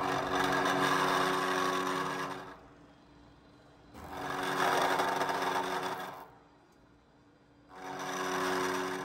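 Vertical milling machine's cutter machining the tops of bolts held in a fixture block, facing them to an exact length. The cutting noise with a steady hum comes in three bursts of about two seconds each, with much quieter pauses between them.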